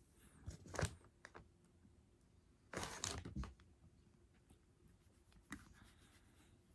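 Quiet rustling and handling sounds of fabric and fur close to the microphone: a few soft clicks near the start, a longer rustle about three seconds in and a short one near the end.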